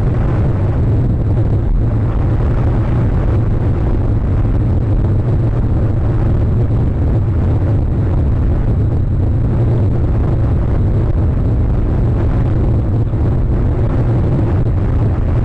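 Wind buffeting an outdoor microphone: a steady, loud, low rumble with no distinct events.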